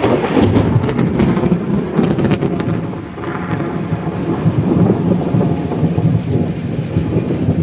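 A long thunderclap in heavy rain: sharp crackling for the first couple of seconds, then a loud, rolling low rumble.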